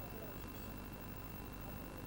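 Steady low background noise with a thin, constant high whine; no distinct event stands out.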